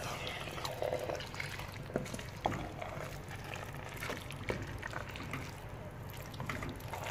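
Pot of vegetable soup with greens, crayfish and meat being stirred: wet squishing and sloshing, with a few light knocks about two and four seconds in.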